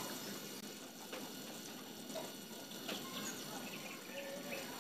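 Fish curry simmering in a pan: faint bubbling with a few small, soft pops.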